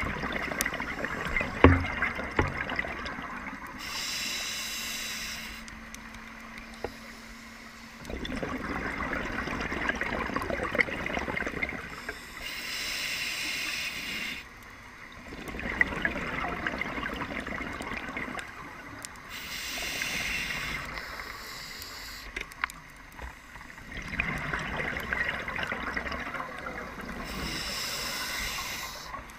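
A scuba diver breathing through a regulator underwater: about four breath cycles, each a rushing bubble noise and then a short high hiss, one every seven or eight seconds. A single sharp knock comes about two seconds in.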